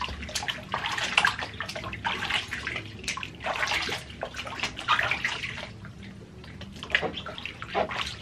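Bath water splashing and trickling in irregular splashes as a baby's head is washed and rinsed by hand. There is a quieter stretch about six seconds in before a few more splashes.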